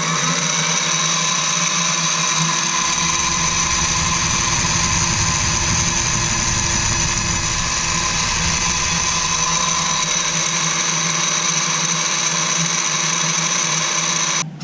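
Drill press running at a steady speed, boring a hole down through a wooden dowel blank, with a heavier low rumble for several seconds in the middle while the bit cuts. The motor shuts off suddenly near the end.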